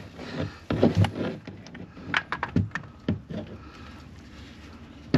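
Short metal clinks and knocks of hand tools, wrench sockets being handled and swapped while looking for one that fits the nut. The clicks come thick for the first three seconds or so, then die away.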